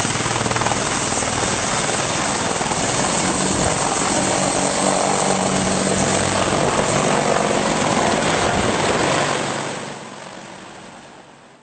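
AH-64 Apache helicopter rotor and engine drone, a loud steady noise with a low hum, fading out over the last two seconds.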